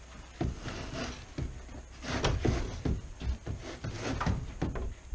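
Irregular wooden knocks and bumps from a framed stud wall being slid and pushed into place on a wooden floor deck.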